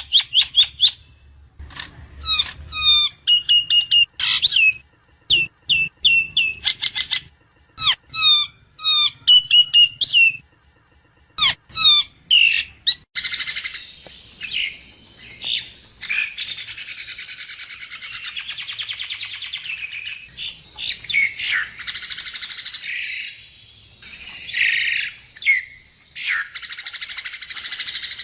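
Javan myna (jalak kebo) singing: runs of quick, sharp chirped notes for the first half, then from about halfway a dense, harsh chattering that goes on to the end.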